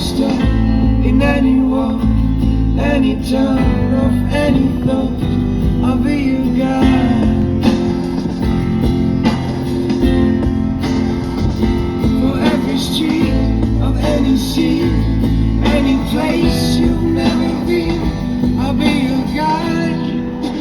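Background music: a song with acoustic guitar, a steady bass line and a singing voice.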